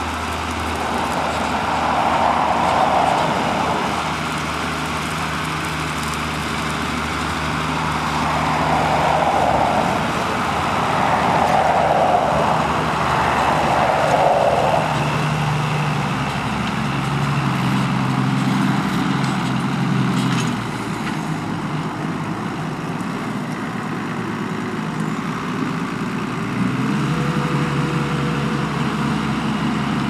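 New Holland 8360 tractor's six-cylinder diesel engine running steadily under load while pulling a four-furrow reversible plough. Near the end the engine pitch rises and holds as the plough is lifted and turned over.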